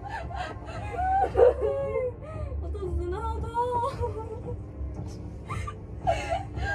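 Women giggling and making playful whining vocal sounds, their pitch sliding up and down, over a low steady rumble.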